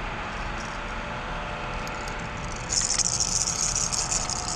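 Fishing reel being cranked as a small catfish is reeled in: a fast, high rattling whir that starts a little over halfway through. Under it runs a steady hum of road traffic.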